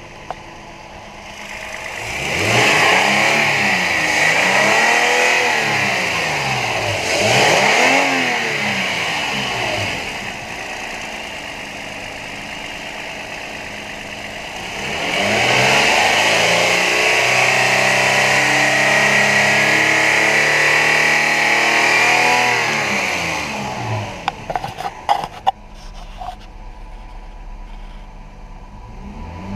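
2012 Toyota Tacoma 4.0-litre V6 engine running and being revved: two quick rises and falls in revs in the first ten seconds, settling to idle, then a revved stretch held for about eight seconds before dropping back to idle. A few sharp clicks come near the end.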